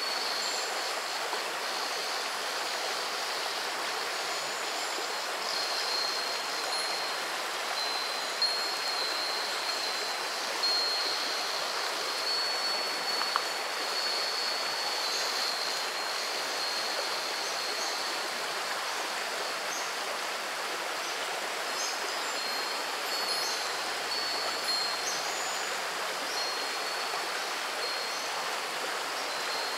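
Shallow river babbling steadily over stones, with a Japanese wind chime (fūrin) ringing now and then. A steady high-pitched drone runs underneath.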